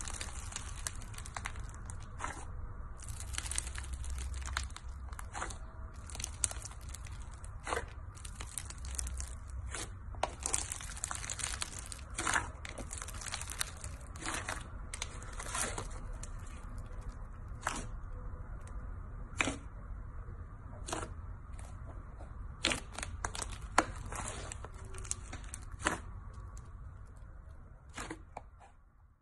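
Hands pressing and kneading thick white slime studded with pink beads: crackling and squishing, with many sharp clicks and pops scattered throughout.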